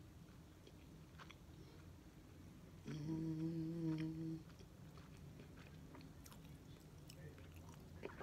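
A woman chewing a mouthful of crispy fried chicken sandwich with faint clicks and smacks, and about three seconds in a single steady closed-mouth "mmm" hum lasting about a second and a half.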